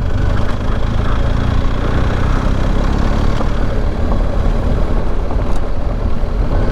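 BMW R1250 GS Adventure's boxer-twin engine running steadily as the motorcycle is ridden, mixed with wind and road noise.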